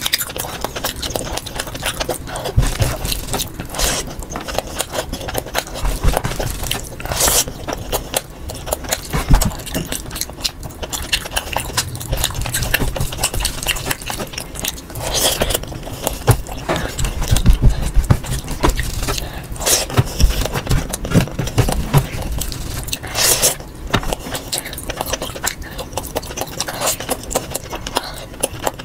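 Close-miked eating sounds sped up to double speed: a man chewing mouthfuls of mutton curry and rice with wet smacking, and his fingers scraping rice across a metal tray. A few short, louder bursts stand out, spaced several seconds apart.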